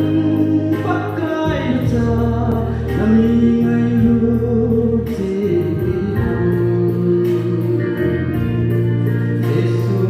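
A man singing a gospel song into a microphone, the notes held and sliding, over instrumental accompaniment with steady low bass notes.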